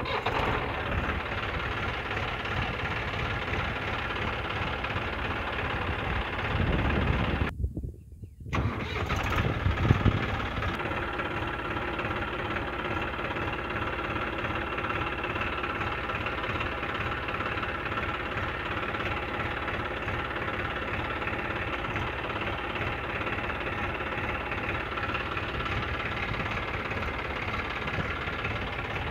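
Massey Ferguson 246 DynaTrack tractor's three-cylinder diesel engine running steadily. About eight seconds in the sound breaks off for a moment, then comes back louder for a second or two before settling to the same steady run.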